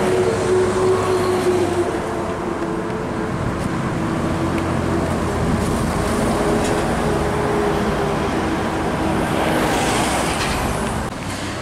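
MAN TGX tractor unit hauling a shipping container drives past on the expressway, its diesel engine and tyres giving a steady hum with a couple of held tones, over the noise of other traffic.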